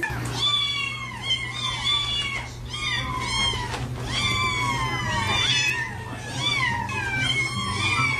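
A cat meowing over and over, a rapid string of short calls that each rise and then fall in pitch, over a steady low hum.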